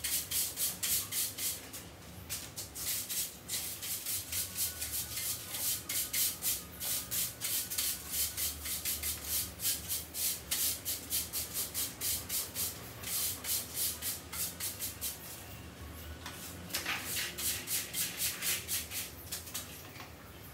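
A broom sweeping spilled potting soil across a concrete floor in quick, repeated strokes, with a short pause about three-quarters of the way through.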